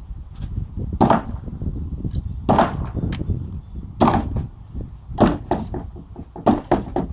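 Concrete block wall being demolished: a series of about seven heavy, irregular impacts and crashes as the blocks are broken and knocked loose, over a steady low rumble.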